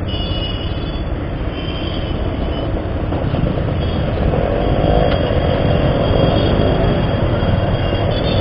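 Bajaj Pulsar 150 motorcycle's single-cylinder engine running at low speed in dense motorcycle and auto-rickshaw traffic, a steady rumble that gets louder about halfway through.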